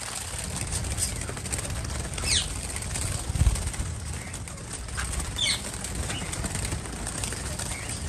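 Diamond doves flapping their wings as they take off and fly about inside an aviary. Two short high falling chirps come through, one a couple of seconds in and one past the middle.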